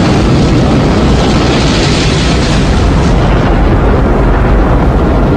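Rocket engines firing at full thrust at liftoff: a loud, steady, rumbling noise with no letup.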